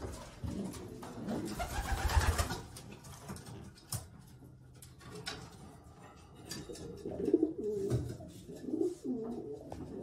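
Racing pigeons cooing in a loft, the calls coming one after another in the second half. About two seconds in there is a short burst of rustling noise, and there are a few scattered clicks.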